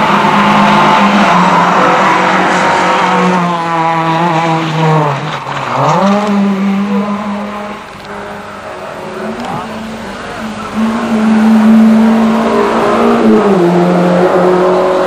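Rally car engine running at high revs through a bend. The revs fall about four to five seconds in, then climb again as it accelerates away. Near the end an engine is again held at high revs and then drops.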